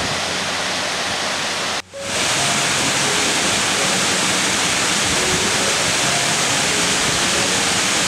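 Waterfall rushing: a steady, dense roar of falling water. The sound drops out for a split second about two seconds in and comes back slightly louder.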